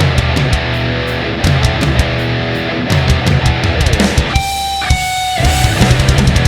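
Loud intro music: heavy rock with electric guitar and a steady drum beat, with a brief break of held tones about four seconds in before the beat returns.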